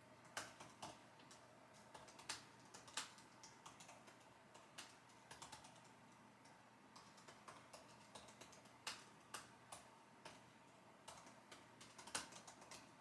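Computer keyboard typing: irregular keystrokes in short runs with brief pauses between them, a few strokes louder than the rest.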